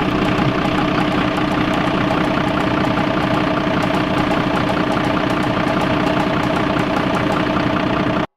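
Fire engine idling steadily, a loud even running drone that cuts off abruptly near the end.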